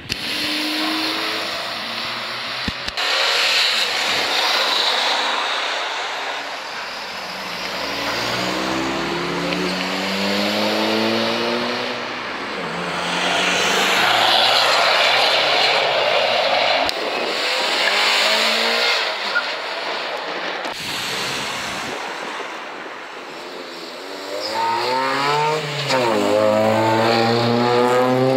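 Cars accelerating away one after another, engines revving up in rising sweeps between loud stretches of rushing exhaust and road noise.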